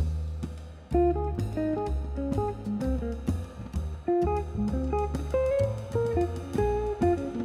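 Background music: a plucked guitar melody over a bass line and drum kit with a steady beat.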